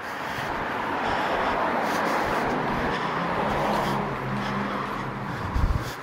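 A motor vehicle passing: a swell of tyre and engine noise that builds, holds, then fades, with a steady engine hum as it goes by. A short low thump comes near the end.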